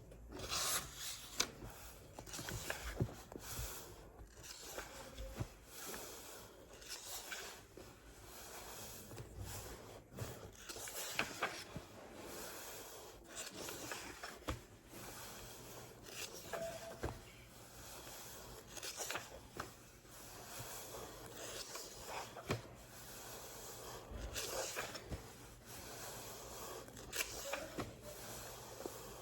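Close-miked scratching, rubbing and tapping on a book, as irregular short strokes and light clicks one after another.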